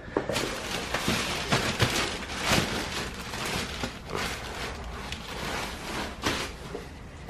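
Black plastic trash bags crinkling and rustling as a gloved hand rummages through the clothes and shoes inside them, an irregular run of crackles.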